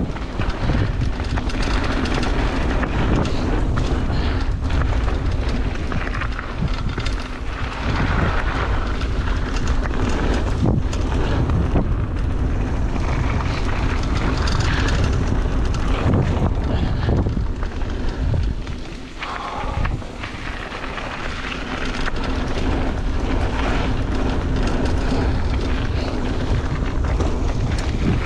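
Ragley Big Al mountain bike ridden fast over a dirt trail: tyre noise on the dirt and wind buffeting the microphone, with frequent knocks and rattles from the bike over bumps. The rider thinks a foam insert would quiet the rattle.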